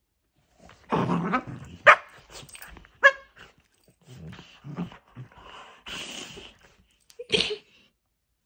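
A golden retriever and a Cavalier King Charles spaniel puppy play-wrestling: low play growls and grumbles, starting about a second in, broken by three short, sharp yips.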